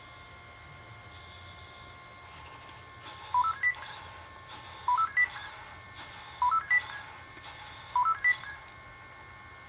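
Sony Aibo ERS-111 robot dog sounding a short electronic tone phrase of a few quick notes stepping upward in pitch, repeated four times about a second and a half apart.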